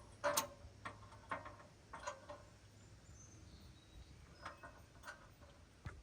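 A series of about seven short, light clicks and clinks at irregular intervals, the loudest about a third of a second in, over a faint steady hum.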